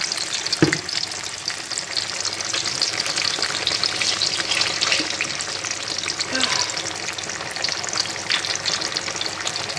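Slices of yam frying in hot oil in a pan: a steady, dense sizzling crackle of bubbling oil. A single short knock sounds about half a second in.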